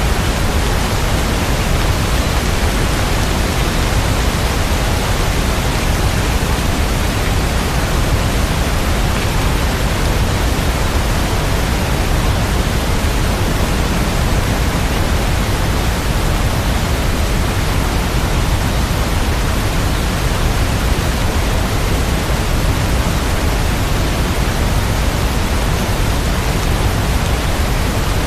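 Steady rain sound: an even, unchanging hiss with no separate drops, thunder or music.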